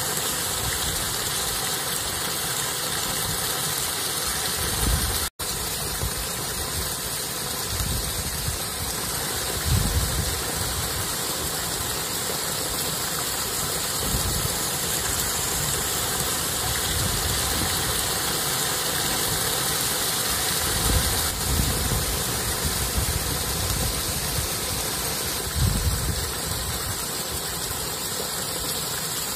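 Steady rush of water spilling over a small stone ledge in a stream, with occasional low rumbles in the background. The sound cuts out for an instant about five seconds in.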